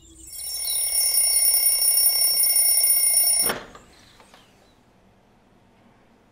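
A high-pitched alarm ringing steadily for about three seconds, then cutting off suddenly, leaving faint room tone.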